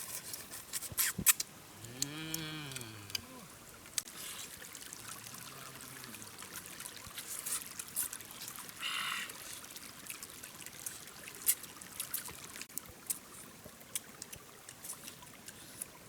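A low, drawn-out call that rises then falls in pitch about two seconds in, with a fainter one a few seconds later, over scattered clicks and ticks.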